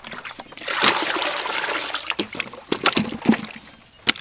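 Water splashing in a metal basin of sweet potatoes as they are washed: a dense rush of splashing about a second in, then a string of sharper splashes and knocks.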